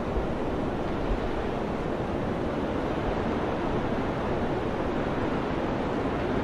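Steady mountain wind blowing: an even, deep rushing with no gusts, breaks or other events.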